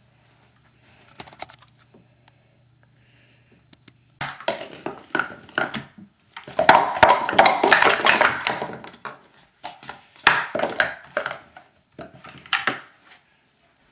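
Plastic sport-stacking cups clattering on a stacking mat as 3-3-3 stacks are quickly built up and brought down. Rapid runs of light clicking and knocking start about four seconds in, are loudest in the middle, and come again in shorter bursts near the end.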